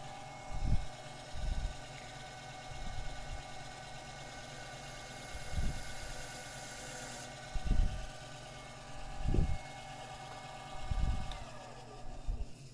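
Small lathe motor running steadily with a whine, spinning a cue tip that is being trimmed flush with a hand blade; about eight dull low knocks sound through it, and the motor winds down near the end.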